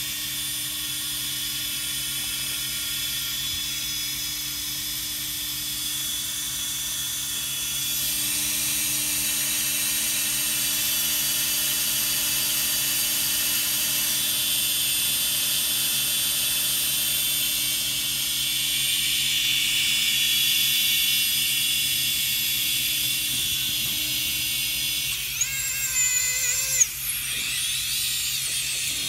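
Walkera F210 quadcopter's brushless motors spinning with no propellers fitted, a steady high whine that grows louder about eight seconds in. The motors keep running after the radio link is cut, a failure of the failsafe. Near the end a short wavering tone and a couple of sharp clicks sound over the whine.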